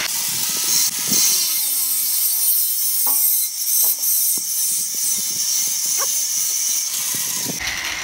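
Handheld angle grinder with its disc running against a steel bar, a steady high-pitched hiss of abrasive on metal that stops near the end.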